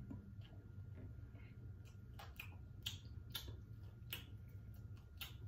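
Wet, sticky mouth clicks and lip smacks of someone chewing turkey-leg meat: a dozen or so irregular sharp clicks over a low steady hum.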